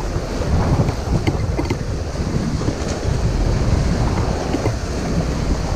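Wind buffeting the microphone, a loud, unsteady rumble, over the wash of small waves breaking in shallow surf.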